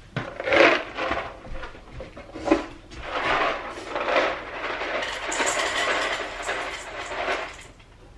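A pet's food being served in a kitchen: two short knocks, then about four seconds of continuous rustling and rattling that dies away near the end.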